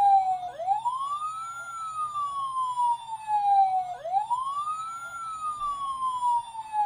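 Battery-powered toy fire truck's electronic siren sounding a wail: the pitch rises quickly, then falls slowly, repeating about every three and a half seconds.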